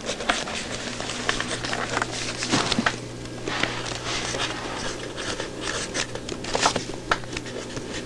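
Pentel PS315 mechanical pencil's 0.5 mm lead scratching across lined notebook paper as words are written, in quick, irregular strokes.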